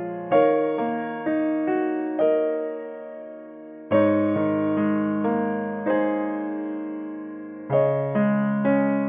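Background piano music: notes struck and left to fade away, with a new chord and run of notes about every four seconds.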